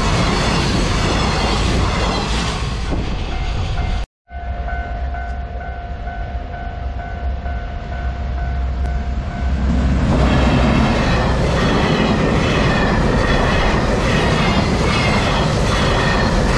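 Container freight wagons rush past at close range with wheel clickety-clack. After a sudden cut, a level-crossing warning bell rings steadily for about five seconds. A second container train, hauled by an EF210 electric locomotive, then passes loudly from about ten seconds in.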